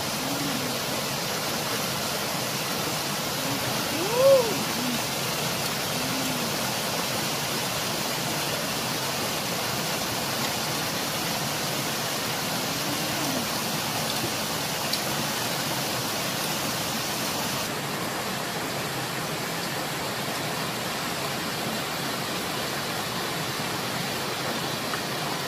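Small waterfall and stream rushing steadily over rocks. A few short pitched sounds that rise then fall are heard over it, the loudest about four seconds in.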